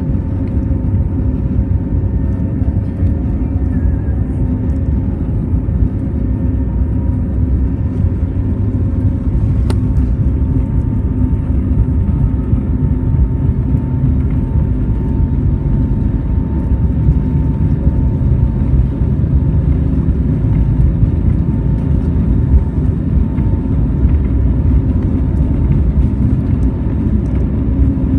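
Cabin noise of an Airbus A320-family jet airliner taxiing: a steady low rumble from the jet engines with a faint, steady engine whine over it.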